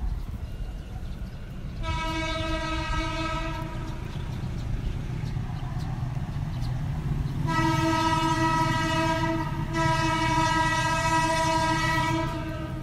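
An approaching diesel locomotive sounds its air horn three times: one blast of about two seconds, then two longer blasts almost back to back. A low engine rumble runs underneath.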